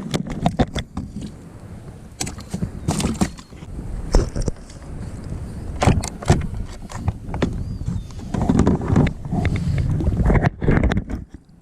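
Kayak on the water with wind rumbling on the microphone and irregular knocks and clatter against the hull.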